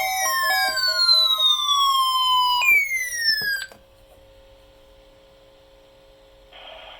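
Electronic tones: a short melody of beeps fades under a pitch glide that falls steadily for about two and a half seconds, then jumps up and falls again, stopping abruptly about three and a half seconds in. After that only a faint steady hum remains, and a hiss comes in near the end.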